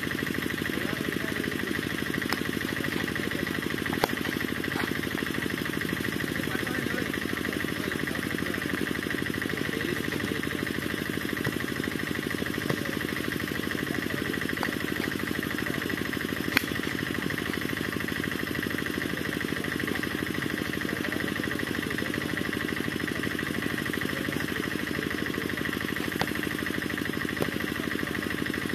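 Steady drone of an engine running at an even idle, with a few sharp cracks standing out above it, the loudest about 4 and 16 seconds in.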